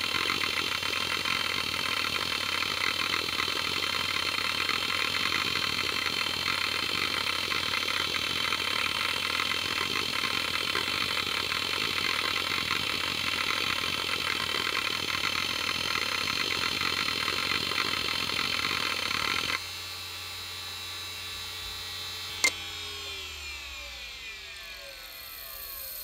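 Seagate ST51080N SCSI hard drive seeking continuously under a disk performance test, a dense steady chatter over the spindle whine. About twenty seconds in the seeking stops abruptly, leaving the spinning drive running quieter. A few seconds later a sharp click comes, and then the motor's whine falls steadily in pitch as the platters spin down.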